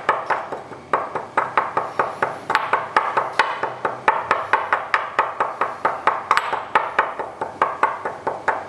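The end of a wooden spoon handle pounding saffron threads against the bottom of a ceramic bowl, used as a makeshift mortar and pestle. It makes a steady run of sharp knocks, about three to four a second.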